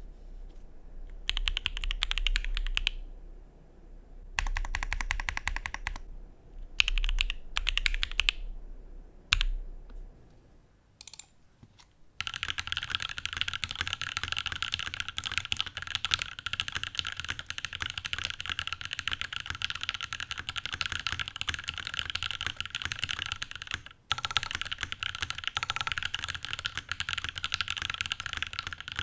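Custom gasket-mounted 65% mechanical keyboard (KBDfans D65, lubed Alpaca v2 linear switches on an FR4 plate, GMK keycaps) being typed on. For about the first twelve seconds the keys come in short separate bursts, then turn into steady fast typing with a brief pause about two thirds of the way through. The sound is muted and dull, which the builder puts down to the many gasket mounting points or the case foam.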